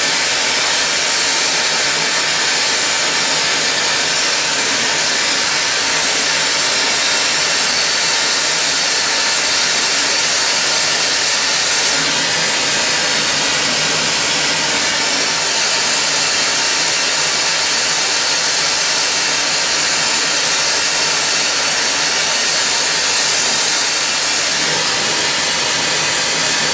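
Hand-held glassworking torch flame running with a steady hiss.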